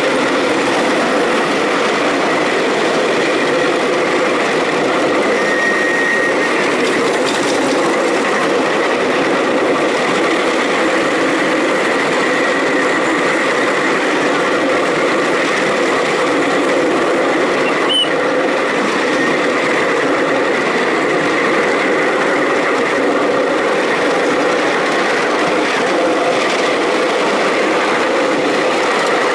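Ride-on miniature railway train running steadily along the track, heard from one of its riding cars: the continuous rolling noise of small wheels on narrow-gauge rails mixed with the hum of the little locomotive's motor.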